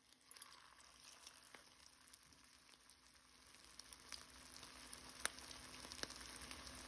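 Faint sizzling of salmon patties frying in hot olive oil in a cast-iron skillet, with scattered sharp pops of spattering oil; it grows a little louder about halfway through.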